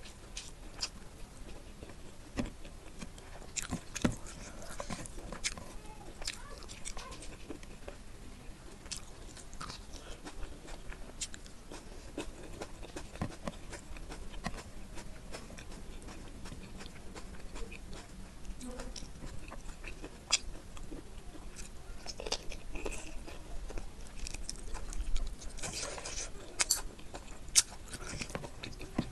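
Close-miked chewing and biting of spicy chicken curry with rice, eaten by hand: wet mouth clicks and irregular crunches, with a cluster of louder crunches near the end.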